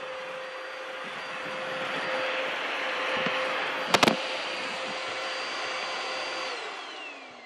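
Bissell Hard Floor Expert vacuum's 6-amp motor running with a steady whine. A sharp knock comes about four seconds in, as the camera is bumped. Near the end the motor is switched off and winds down, its whine falling in pitch.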